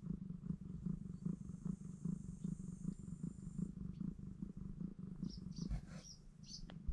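Cat purring, a steady low rumble, while newborn kittens nurse against the mother cat.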